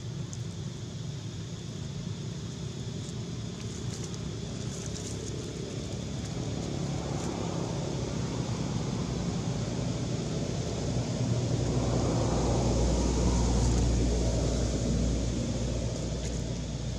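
Low rumble of a passing motor vehicle, building slowly, loudest a little past the middle, then easing off, over a steady high hiss.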